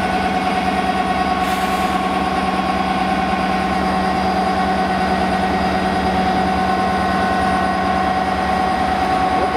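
DB Cargo Class 66 diesel locomotive's two-stroke EMD engine running steadily at low power, an even note with a constant whine, as the locomotive moves slowly. A brief hiss comes about one and a half seconds in.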